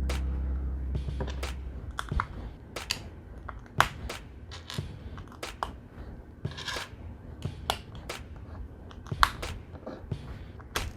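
LEGO pieces clicking and tapping as they are handled and pressed together, sharp irregular clicks a fraction of a second to a second apart. A low background music bed fades out in the first second or two.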